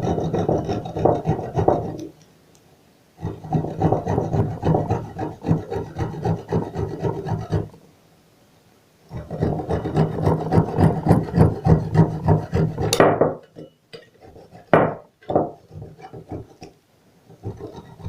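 Cypress cones being grated by hand on a grater, with the outer skin rasped off in quick repeated strokes. There are three long bouts of steady scraping with brief pauses between them, then a few lighter, separate scrapes near the end.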